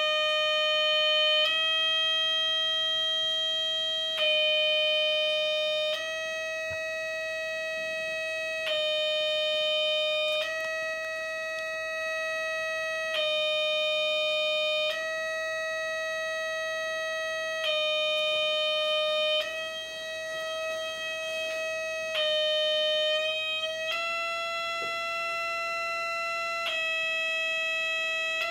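Gakken MyKit MX-180 electronic kit's oscillator circuit giving out a steady, piercing electronic tone rich in overtones. It alternates between two close pitches about every two seconds. Near the end it shifts to a slightly higher steady pitch.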